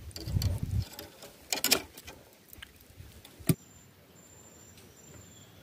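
Hands handling a just-caught giant freshwater prawn and fishing tackle in a wooden boat: soft rustling and a few small clicks, then one sharp knock about three and a half seconds in.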